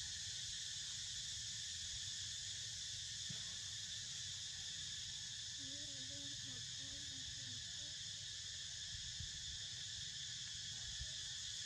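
Steady insect chorus: a continuous, even high-pitched drone of crickets or cicadas, with a faint low wavering sound about halfway through.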